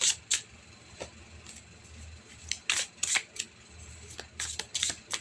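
Tarot cards being shuffled and handled: a string of quick, sharp papery snaps and flicks, several in clusters.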